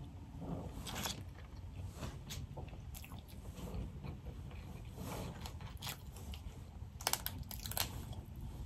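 Close-miked chewing and mouth sounds of a person eating boiled crawfish, with scattered clicks and crackles of crawfish shells being picked through by hand; a quick run of sharper cracks comes about seven seconds in.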